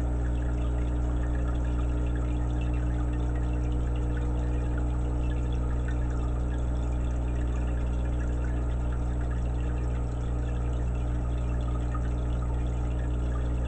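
Aquarium air stone bubbling steadily, a dense stream of air bubbles fizzing and crackling as they rise, over a steady low hum.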